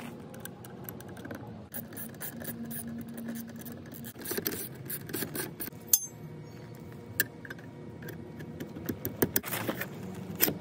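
Metal clicks, clinks and scraping as steel seat slider rails and bolts are handled and fitted to the underside of a car seat cushion. The clicks come irregularly, with a sharp one about six seconds in and a quick run of them near the end.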